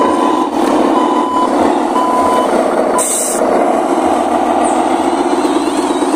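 Radio-controlled model Fuso dump truck running with a steady engine drone. Three short reversing beeps sound about a second apart at the start, and a short hiss comes about three seconds in.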